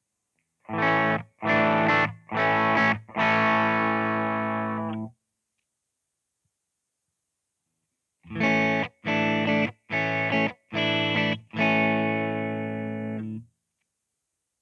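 Fender Stratocaster Blacktop electric guitar played through a Boss GT-100's Twin Reverb amp emulation: a phrase of three short chords and a longer held one, a pause of about three seconds, then four short chords and a held one. Each chord is cut off sharply.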